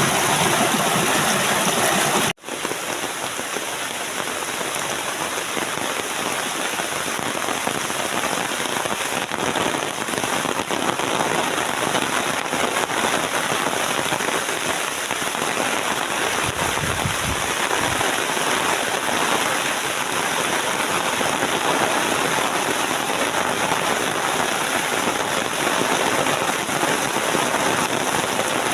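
Steady rain falling, an even hiss with scattered drop patter. The sound cuts out for an instant a little over two seconds in, then resumes. A brief low rumble comes a little past halfway.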